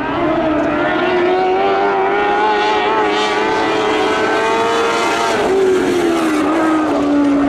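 Sprint car engine running hard. Its pitch climbs steadily for about five seconds, then drops back over the last couple of seconds.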